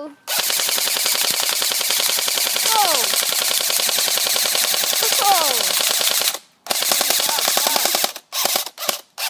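M16 rifle firing on full automatic: a long, rapid stream of shots that stops briefly about six seconds in, then a shorter burst and a few quick bursts near the end.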